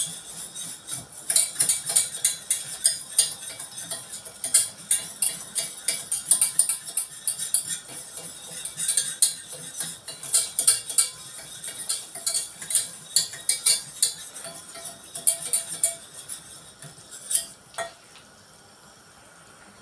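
A spoon scraping and clinking against the inside of a stainless steel pot in quick, repeated stirring strokes, working a flour-and-fat roux as it toasts for béchamel sauce. The stirring thins out near the end, with one single knock.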